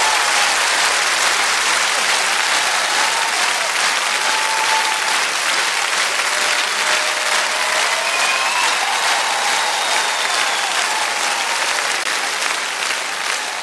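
Large concert-hall audience applauding steadily, the clapping easing off a little near the end.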